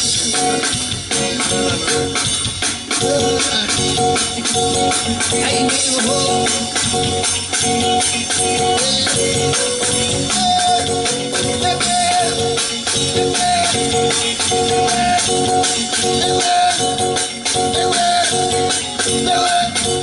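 Live soca band playing an instrumental groove: drum kit and a fast, rattling shaker-like percussion rhythm under sustained held notes.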